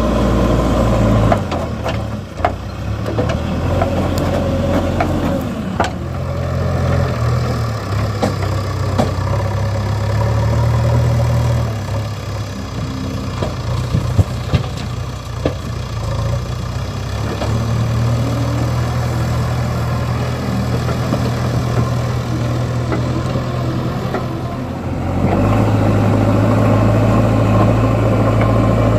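Diesel engine of a JCB backhoe loader working, its revs stepping up and down as the hydraulics take load, with a few sharp metal clanks of the bucket and arm.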